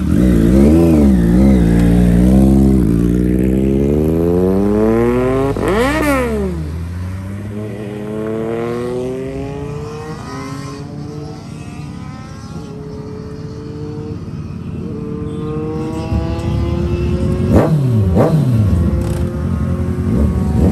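Sport motorcycle engines revving. There are a few throttle blips at first, then one sharp rev up and back down about six seconds in. After that an engine climbs steadily in pitch as a bike pulls away, and two more quick sharp revs come near the end.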